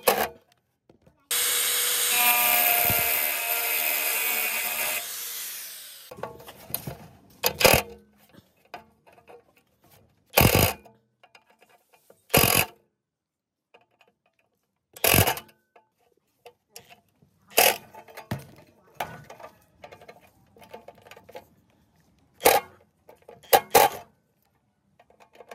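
Cordless drill with a hex bit running steadily for about four seconds, spinning out a bolt on a chop saw's blade guard, then winding down. Short sharp knocks follow every two or three seconds.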